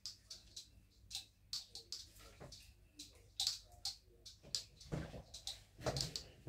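Faint, irregular clicks and taps of off-camera handling, with a couple of louder knocks about five and six seconds in.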